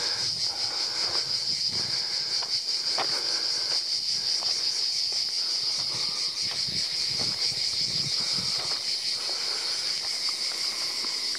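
A chorus of cicadas buzzing steadily at a high pitch, with the walker's footsteps on a dry dirt path underneath.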